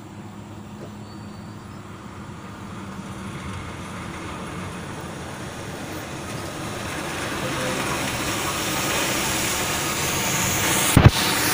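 Volvo FM370 tanker truck approaching on a wet road: its diesel engine and tyre hiss grow steadily louder as it comes closer. A brief loud thump sounds near the end.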